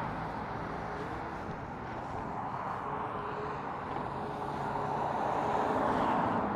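Steady riding noise from an e-bike on a wet road: tyre hiss and wind on the microphone, swelling slightly toward the end, with a faint steady hum underneath.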